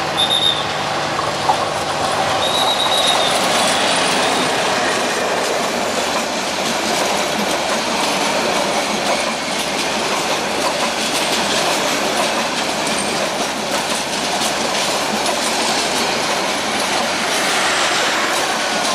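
Metre-gauge intercity passenger coaches rolling past close by: a steady loud rumble of steel wheels on rail with rhythmic clickety-clack over the rail joints. A short high squeal from the wheels comes twice in the first three seconds.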